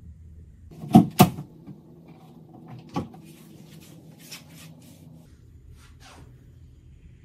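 Wooden wardrobe doors being shut: two sharp knocks close together about a second in, a lighter knock a couple of seconds later, then a few faint clicks.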